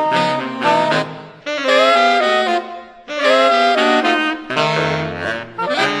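Saxophone quartet playing jazz, several saxophones sounding together in held chords phrased in short bursts, with brief breaks about one and a half and three seconds in and a note scooped upward between them.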